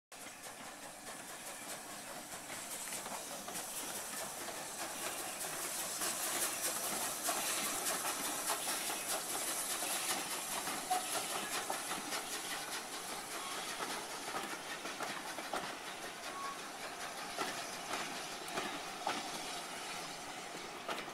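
Steam-hauled passenger train passing, led by a Bulleid West Country class locomotive: a steady rush of steam hiss and rolling coach wheels with many small clicks over the rail joints. It grows louder over the first few seconds as the engine draws level.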